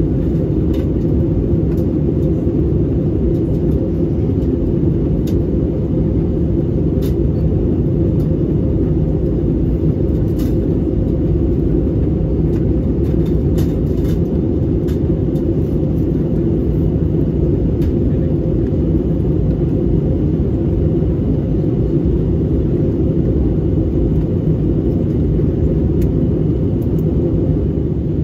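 Jet airliner cabin noise heard from a window seat: a steady low roar of engines and rushing air, with the aircraft on descent. A few faint ticks sound now and then.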